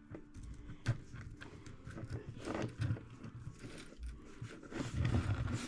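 Scattered light clicks and knocks as the plastic frame rails of a micro RC crawler chassis are spread by hand and a mount is pressed in between them.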